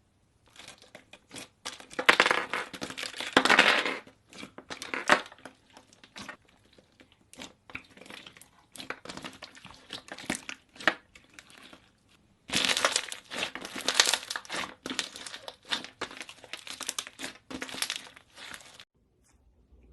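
Slime being squeezed and handled, giving dense crackling and popping in bursts, loudest about two seconds in and again about twelve seconds in, with scattered clicks between.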